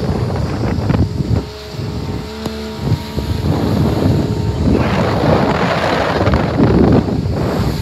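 Wind gusting over the microphone of a motorboat under way, with the boat's engine humming steadily underneath and water rushing past the hull. The gusts ease for a moment about a second and a half in, then grow louder again.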